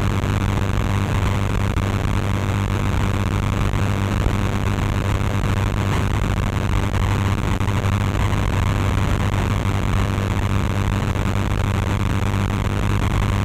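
Steady low electrical hum with an even hiss over it, unchanging throughout, with no music, voices or distinct events.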